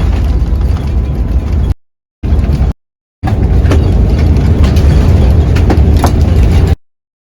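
Loud, steady rumble of an Airbus A350-1000's cabin during landing, with a few short rattles. The sound comes in three separate stretches, with abrupt cuts to silence at about 2 seconds, about 3 seconds, and near the end.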